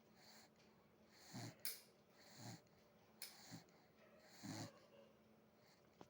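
Faint snoring in a steady rhythm, about one breath a second; each snore has a low rumble with a wheezy, breathy hiss.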